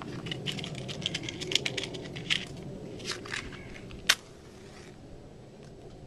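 Kindling and paper being handled and pushed into a cinder-block forge: a patter of small clicks and rustles, with one sharp click about four seconds in.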